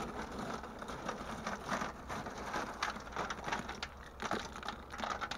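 Lumps of crushed coal clattering and clinking against each other and against a steel bucket as hands dig into the pile and scoop up a handful, a dense, irregular rattle of small knocks.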